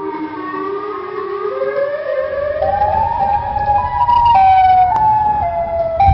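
A siren-like wailing tone that climbs in steps from low to high over several seconds, with several overtones above it and a low rumble beneath.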